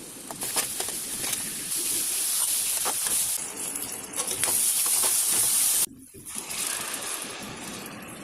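Food sizzling in a hot pan, a steady hiss with scattered clicks and scrapes of stirring. It drops away suddenly just before six seconds, then carries on more quietly.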